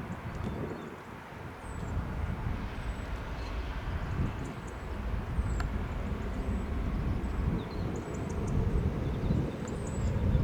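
Low, uneven rumble of an Airbus A319 jet climbing away after takeoff, heard from a distance, with short high chirps over it.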